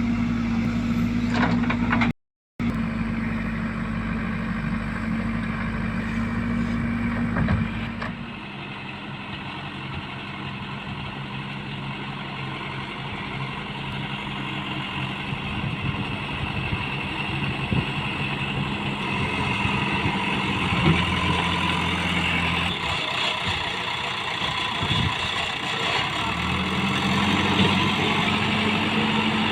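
Diesel engine of a JCB 3DX backhoe loader running steadily, cutting out for a split second about two seconds in. About eight seconds in its note drops and turns rougher, then the higher steady note returns near the end.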